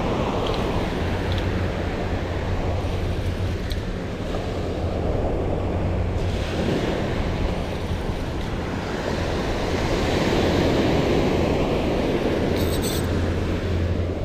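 Ocean surf breaking and washing up the beach, with wind buffeting the microphone; the surf swells louder about ten seconds in.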